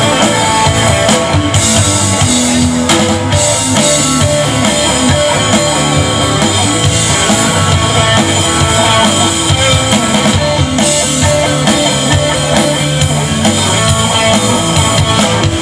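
Live rock band playing loud and steady, electric guitar and bass guitar over a drum kit.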